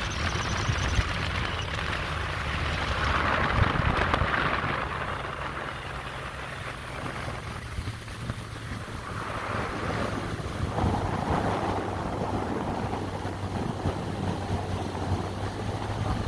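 Motorboat under way: a steady low engine drone under the rush of water past the hull, with wind buffeting the microphone.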